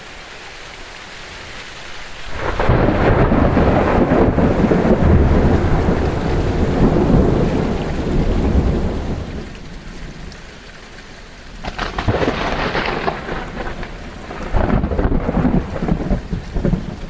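Thunder in a rainstorm: a sudden loud clap about two seconds in rolls into a long deep rumble, and two more peals break out later, over the steady hiss of rain.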